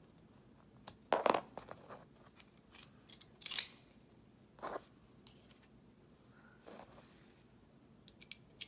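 Small metal parts of an OTF knife being handled and fitted together by hand: scattered light clicks and short scrapes, the loudest a sharp, bright scrape about three and a half seconds in.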